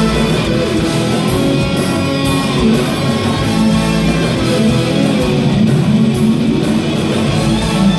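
Live rock music played by a band with a symphony orchestra, electric guitar to the fore, heard loud from the audience.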